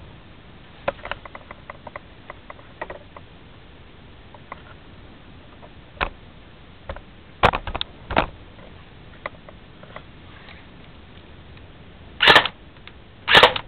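Airsoft M4 rifle firing single shots on semi-auto, a second or more apart. The loudest shots come as a pair about seven and a half seconds in and two more near the end, with softer clicks in the first few seconds.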